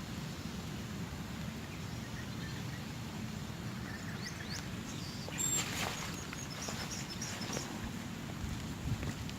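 Open-air ambience: a steady low rumble, with a few short, high bird chirps and a click bunched in the middle.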